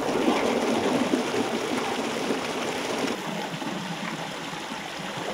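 Shallow stream running over rocks: a steady rush of splashing water, easing slightly toward the end.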